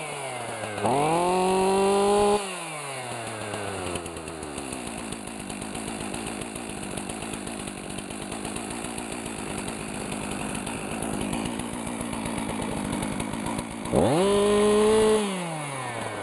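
Stihl MS362 chainsaw's two-stroke engine blipped to full throttle twice, once about a second in and again near the end, each time held high for a second or two before dropping back to a steady idle. It runs strong and idles smoothly.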